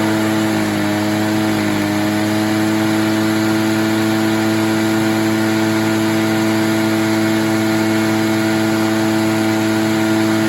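Echo PB-403T backpack blower's two-stroke engine running steadily at a constant speed, its pitch wavering slightly in the first couple of seconds before holding even.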